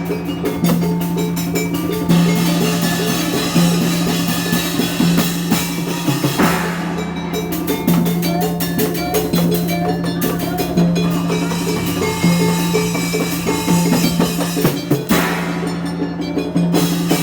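Indramayu obrog street-music ensemble playing: a fast, busy drum rhythm over a low sustained tone that restarts about every second and a half.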